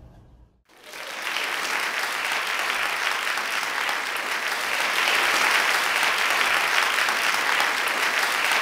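Crowd applause, starting about a second in and holding steady.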